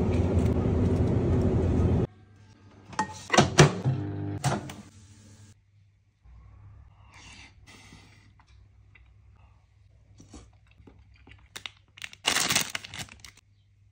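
Loud steady background noise that cuts off suddenly about two seconds in. Then a few sharp clicks and knocks of a plastic-lidded soup cup being handled, and near the end a short crinkle of a plastic onigiri wrapper.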